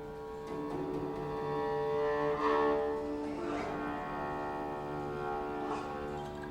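Guzheng quartet holding long, steady tones that sound bowed rather than plucked, an extended technique. A few sweeping glides rise and fall above the held notes.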